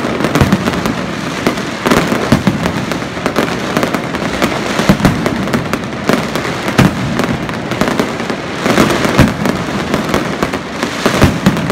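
Aerial fireworks bursting in quick succession: many sharp bangs, several of them loud, over a steady crackle of the bursting stars.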